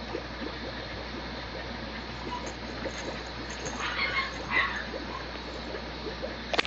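A mame shiba puppy playing and play-biting, with rustling and two short vocal sounds about four seconds in, followed by a sharp click near the end.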